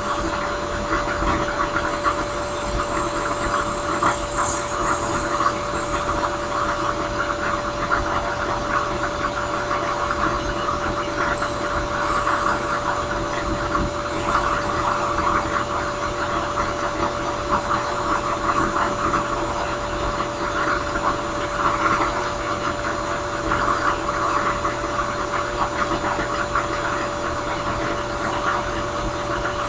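Drill press spinning a drum sander while a briar pipe bowl is pressed against it: a steady motor hum under a rasp of sanding that swells and eases as the wood is worked against the drum.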